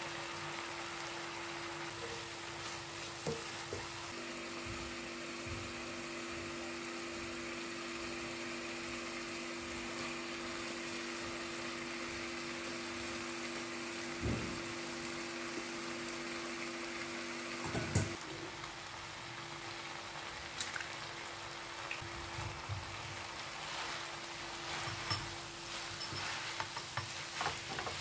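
Spinach and egg sizzling steadily in a frying pan, under a steady hum that stops about two-thirds of the way through. A couple of knocks come as cooked spaghetti is tipped in, and near the end metal tongs click and scrape against the pan as the noodles are tossed through.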